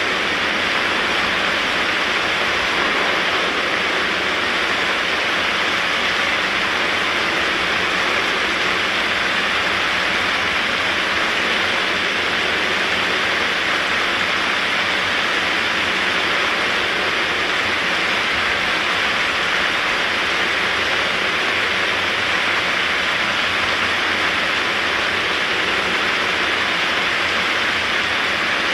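Heavy rain pouring onto a street and the parked cars along it: a loud, steady, even hiss of downpour.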